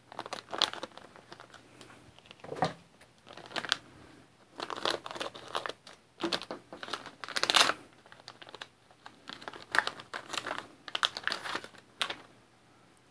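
Metallised anti-static bags crinkling in irregular bursts as they are handled and opened.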